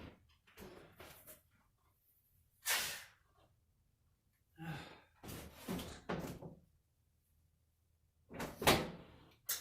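A person coughing and sneezing in a series of short, explosive bursts, about four of them, the loudest near the end.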